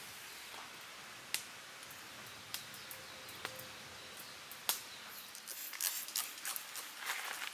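A few sharp, isolated cracks, then, from about five and a half seconds in, a run of crunching footsteps on dry forest floor.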